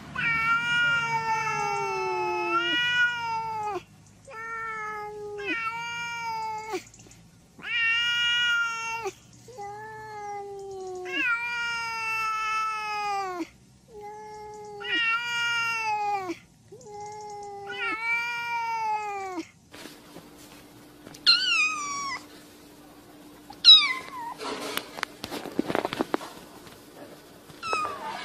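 A cat meowing over and over, about eight long, drawn-out meows that each fall in pitch. About two-thirds of the way in, a different cat gives two short, higher-pitched meows over a steady low hum.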